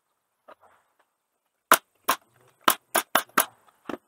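Pneumatic brad nailer firing seven times in quick succession, each shot a sharp crack as it drives a brad into cherry wood. The shots start about a second and a half in and come a few tenths of a second apart.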